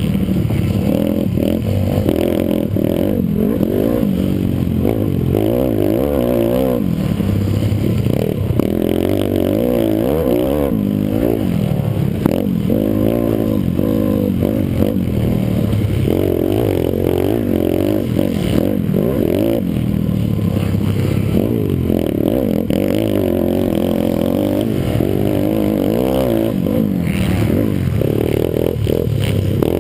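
Pit bike's single-cylinder four-stroke engine at race pace, heard from a camera mounted on the bike: the revs climb and drop again and again through shifts, corners and jumps, loud throughout.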